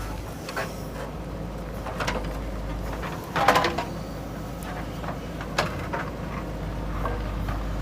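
JCB 3DX backhoe loader's diesel engine running steadily, with intermittent metallic clanks and scrapes of the bucket working soil. The loudest clank comes about three and a half seconds in.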